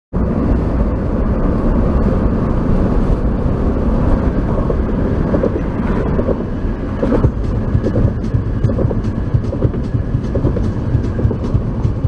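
Steady road and wind noise of a car travelling at highway speed, a loud uneven rumble heard from inside the moving car.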